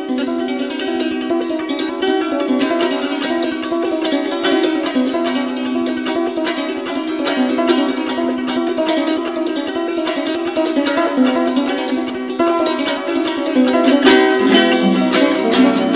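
Folk music played on a plucked string instrument: a fast, densely picked melody. Near the end a lower accompanying part comes in underneath.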